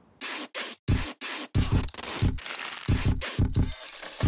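Packing tape ripped off the roll in a rapid series of strips, with low thumps under several of the rips.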